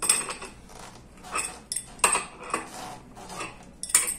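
Irregular metallic clinks and clicks, several with a short ring, from tools and metal casing parts of a gearless e-bike hub motor as its side cover is turned and worked into place against the pull of the magnets.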